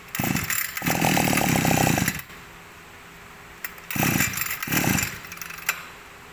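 Small two-stroke engine of an Echo 220 brush cutter being pull-started. A first pull of the recoil starter is followed by the engine firing for about a second and cutting out. Two more quick pulls of the cord come near the end.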